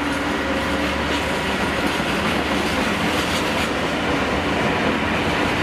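Empty flat freight wagons rolling past, a steady rumble with the clatter of their wheels over the rail joints.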